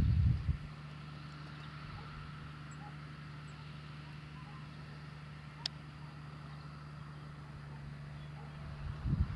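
Distant JCB Fastrac tractor's diesel engine running with a steady hum as it tows a slurry tanker across the field. Brief low rumbles come at the start and near the end, with a single sharp click about halfway.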